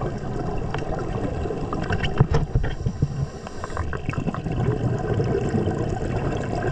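Muffled underwater sound from a GoPro-type action camera: steady rushing, gurgling water with scattered short clicks and crackles as the camera moves through the water near a diver.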